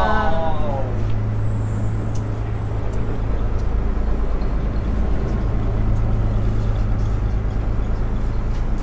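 Steady low drone of a houseboat's engine, heard from inside a cabin.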